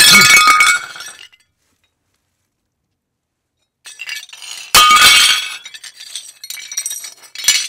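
Glass-shattering sound effect, heard twice: a sharp crash of breaking glass with ringing shards at the start that dies away within about a second, then after a silent gap a second crash about five seconds in, followed by scattered tinkling clinks of falling pieces.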